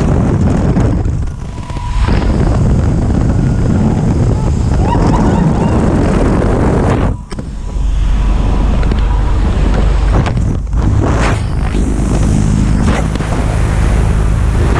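Loud wind rushing through the open door of a small high-wing jump plane in flight, over the drone of its propeller engine. The noise dips briefly about a second and a half in and again about seven seconds in.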